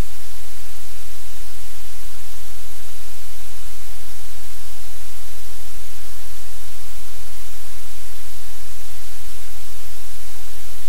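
Loud, steady static hiss over a low electrical hum, unchanging throughout: noise in the livestream camera's audio feed.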